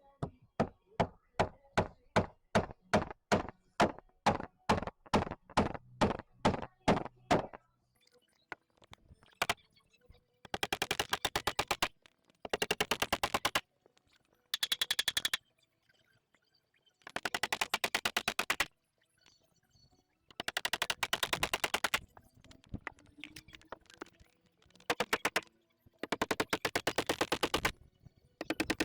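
A hammer striking about two times a second for some seven seconds, then seven short bursts of very rapid clicking from a power tool, each a second or two long, as fasteners are driven into wooden boards.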